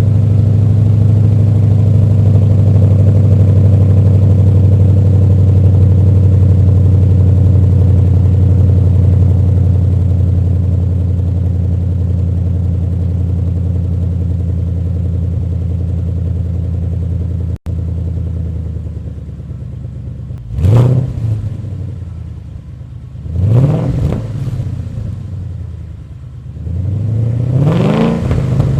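2011 Ford Mustang GT's 5.0 V8 on a cold start, heard through a 3-inch MBRP cat-back exhaust and H-pipe. It runs at a high, steady fast idle that slowly settles lower, then is revved three times, each rev rising and falling, a few seconds apart in the last third.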